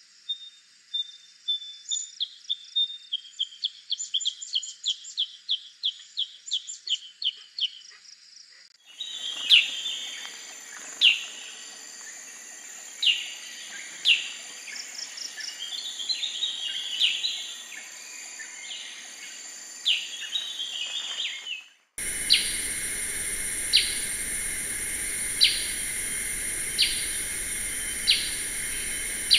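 Black-headed bulbul calls from spliced recordings. First comes a quick run of short, high chirps, about three a second. After a sudden cut, scattered sharp notes sound over a hissy background. Then, after another cut, a single sharp note repeats about every second and a half over a steady high-pitched hiss.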